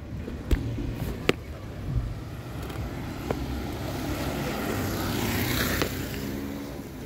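A car passing by: its noise swells to a peak about five and a half seconds in, then fades. Two sharp clicks come in the first second and a half.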